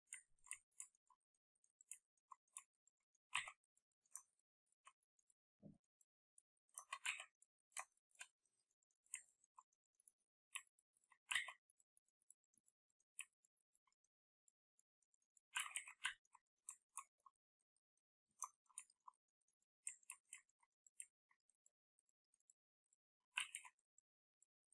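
Faint, irregular clicks and taps from computer input devices, scattered singly and in quick clusters with short pauses between.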